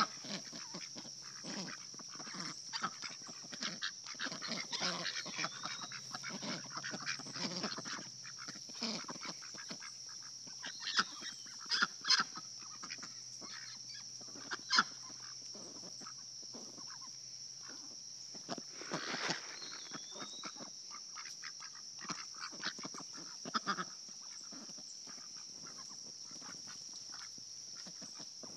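Pet Pekin, Cayuga and Welsh Harlequin ducks feeding, with scattered short quacks and clicking, dabbling noises from their bills, and a few louder calls partway through. A steady high-pitched hiss runs underneath.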